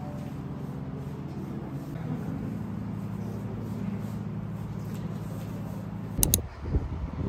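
Steady low engine hum of a vehicle in motion, shifting slightly about two seconds in. About six seconds in comes a sharp double click, followed by a couple of dull thumps.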